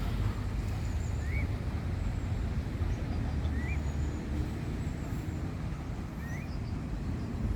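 Steady low outdoor rumble, like distant traffic, with a bird giving a short rising chirp three times.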